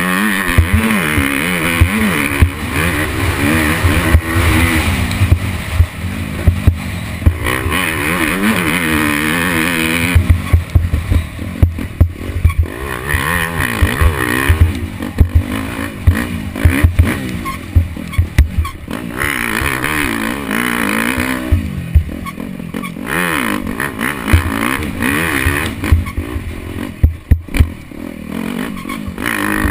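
Dirt bike engine revving up and down over and over as the bike accelerates, shifts and backs off along a rough track, with frequent sharp knocks and clatter.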